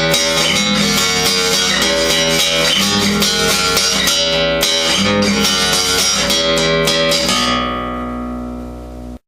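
Intro music: rhythmic strummed guitar chords, ending on a final chord that rings out and fades before cutting off just before the end.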